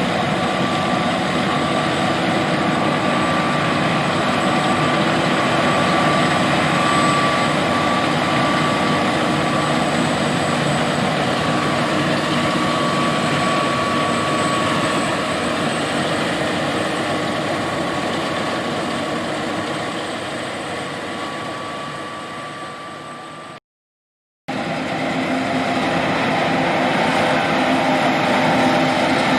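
John Deere S780 combine running as it harvests soybeans: a steady mechanical drone with a thin high whine over it. The sound slowly fades, breaks off for a moment at a cut about three quarters of the way through, and comes back at full level.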